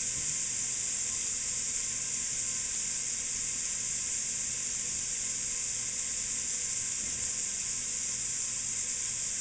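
Bacon fat and mirepoix sizzling in a stockpot on the stove, a steady even hiss as the fat renders.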